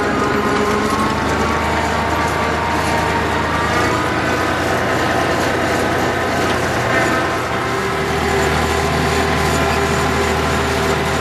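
Ursus C-360 tractor's four-cylinder diesel running steadily under load, heard from inside the cab, with a high whine over the engine note and a constant mechanical rattle.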